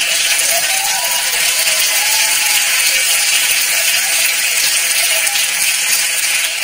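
Studio audience laughing and applauding, a steady, dense clatter of clapping with laughter mixed in.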